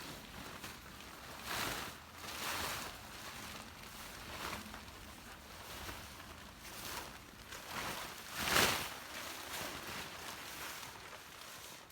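Nylon tent flysheet rustling and swishing as it is handled and drawn over the tent, in a series of soft swishes, the loudest about two-thirds of the way in.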